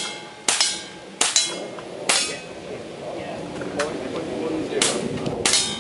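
Five pistol shots fired at steel plate targets, unevenly spaced over about five seconds, several hits leaving the steel plate ringing with a bright metallic ring after the shot.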